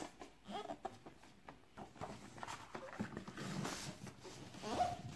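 Faint rustling and light knocks of a paper pop-up book and its stiff pages being handled, with a brief faint pitched sound near the end.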